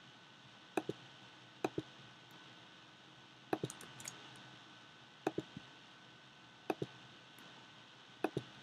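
Computer mouse clicking as compose windows are opened and selected: short sharp clicks, mostly in close pairs, about one pair every one to two seconds.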